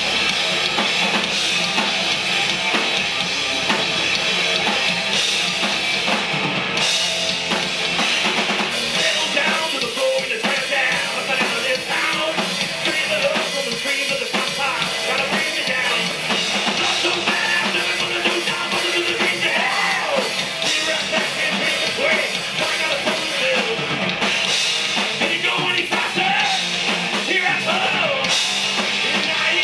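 Hard rock band playing live, with electric guitars and a drum kit throughout and a man singing lead vocals from about eight seconds in.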